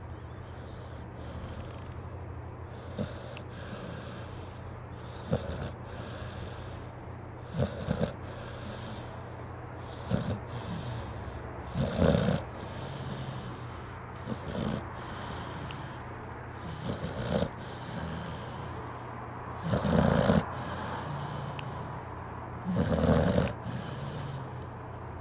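Pit bull snoring loudly in its sleep, one snore every two to three seconds, the loudest near the middle and twice toward the end.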